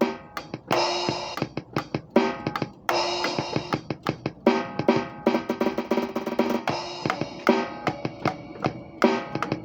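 Acoustic drum kit played loosely and irregularly: quick runs of snare and tom hits over bass drum, with cymbal crashes that ring on.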